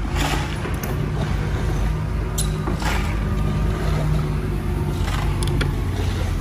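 A motor running steadily with a low hum, with a few scattered knocks and clinks.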